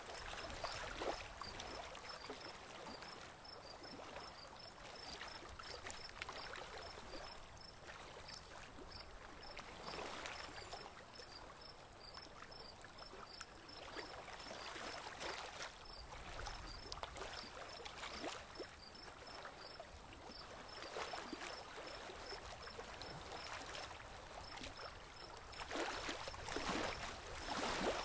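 Water lapping and splashing gently against a small boat's hull, swelling several times, with faint high chirps repeating evenly throughout.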